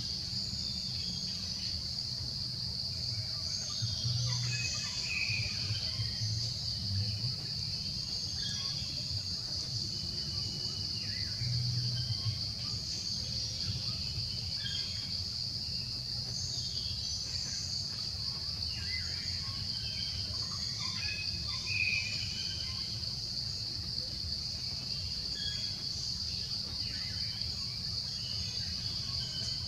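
Outdoor insect chorus droning steadily in one high band, with scattered short chirps and a low rumble underneath.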